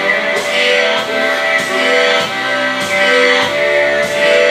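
Loud music with sustained chords that change every half second or so in a repeating pattern.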